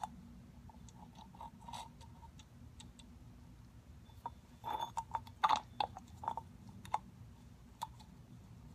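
Light clicks and scrapes of a plastic syringe knocking against the inside of an oil catch can as it draws out collected blow-by oil, scattered at first and busiest in the middle. A faint steady low hum runs underneath.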